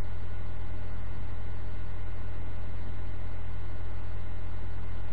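A steady low drone with an even hiss and a few faint held tones over it, unchanging throughout.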